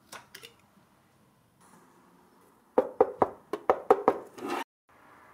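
A quick run of about eight sharp knocks and clicks in under two seconds, from hands handling parts on the motorcycle, with two faint clicks before them.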